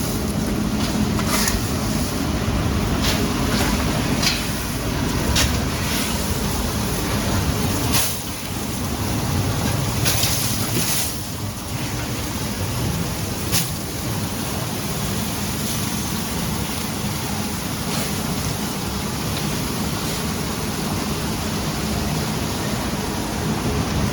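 Industrial machinery running with a steady rumbling noise, with scattered sharp clicks and knocks over the first half.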